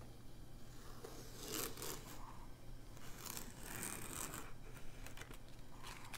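Tape being peeled off the edge of watercolour paper: a faint rasping tear in two main stretches, about one and a half and three seconds in.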